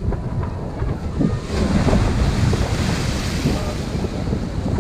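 Sea waves breaking and washing over jetty rocks, with wind buffeting the microphone; a wave crashes and hisses from about a second and a half in.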